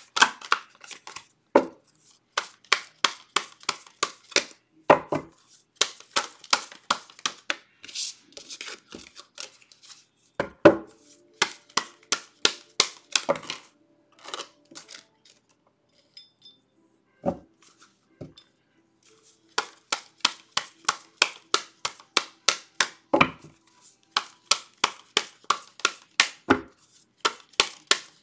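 A deck of oracle cards shuffled by hand, the cards slapping together about four times a second, with a sparser pause of a few seconds midway.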